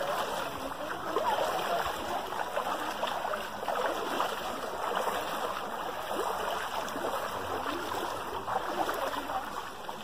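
Bare feet wading through a shallow, sandy stream, the water sloshing and splashing in an irregular patter of steps.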